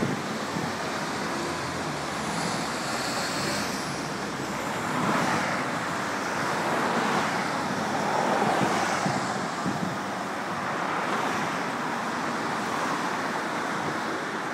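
Street traffic passing on a multi-lane road: a steady wash of tyre and engine noise that swells as individual cars go by, a few times.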